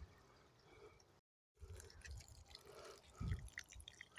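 Faint trickle of water poured from a glass jug into a cast-iron kazan onto rice, with a soft low bump about three seconds in.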